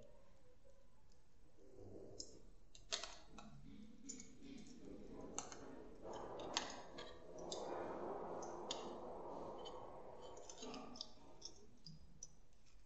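Irregular small clicks and light scraping from a steel caliper's sliding jaw being moved and closed on the edge of a thin sample disc to measure its diameter, with a soft stretch of scraping about halfway through.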